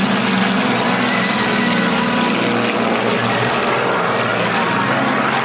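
Formation of four Fuji T-3 trainers flying past overhead, their propellers and piston engines making a steady droning drone.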